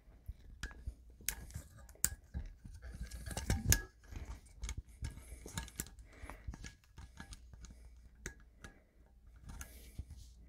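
Faint, scattered small clicks and handling noise of bare copper ground wires being worked into a Wago lever connector.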